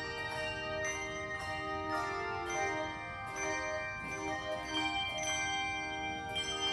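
Handbell choir ringing a piece in G minor: many bell notes struck in quick succession, overlapping and ringing on into one another.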